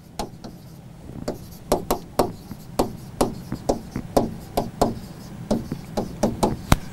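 Pen tapping and scraping on a writing board as letters are written: an irregular run of short, sharp knocks, several a second.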